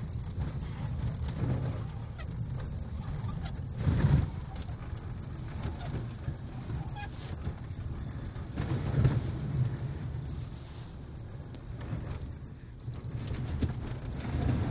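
Vehicle driving through slush and meltwater puddles on a thawing winter road, heard from inside the cab: a steady low rumble of engine and tyres with water spraying against the underside. The rumble swells louder about four, nine and fourteen seconds in as the wheels hit puddles.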